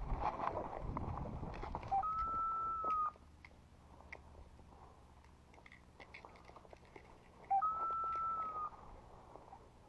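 Footsteps crunching on a gravel track, then two identical high whistle-like tones, each about a second long, sounding about five and a half seconds apart.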